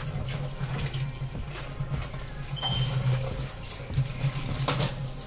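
Tap water running into a stainless steel sink and splashing over hookah hose and pipe pieces being rinsed under it, with a couple of louder splashes near the end. A steady low hum runs underneath.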